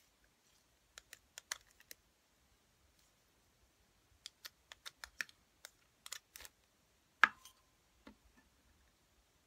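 Light clicks and crackles of a thin plastic custard pudding cup being handled as it comes off the pudding, in scattered clusters. About seven seconds in, a sharper knock with a brief ring as something is set down on the table or touches the plate.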